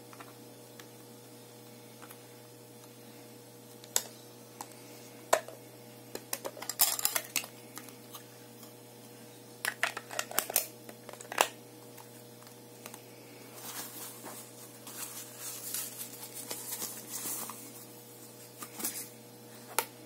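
Hard plastic clicks and taps as the white plastic case of an electronic blood pressure monitor is handled and turned over, in scattered bursts. Near the middle there is a stretch of soft rustling, then a few more clicks near the end, all over a steady low hum.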